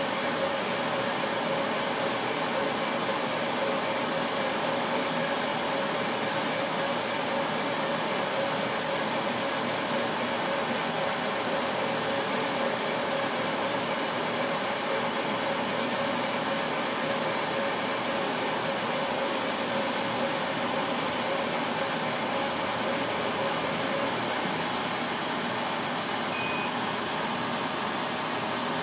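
Epilog 35-watt laser engraver running while engraving black marble: a steady whir of its fans and exhaust with the moving carriage, holding an even tone. About three seconds before the end the tone fades and a short beep sounds as the job finishes.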